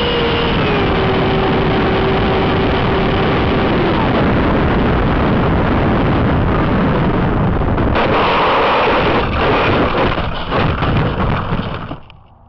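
Electric ducted-fan RC jet (70 mm fan, brushless motor) heard from a camera on the plane, whining over heavy wind rush, its pitch dropping in steps as it slows on approach. About eight seconds in it touches down on grass, with a rougher rattling roll-out, and the sound dies away near the end as the plane stops.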